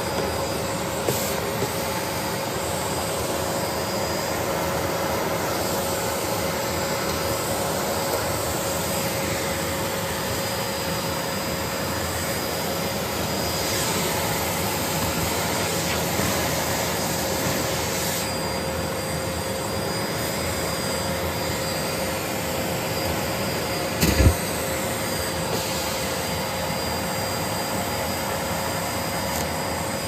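Bosch BGS21X320 bagless canister vacuum cleaner running steadily, a constant rush of suction with a steady whine, as its wand vacuums scattered flowers off a hard floor. There are a few small clicks near the start and one sharp knock late on.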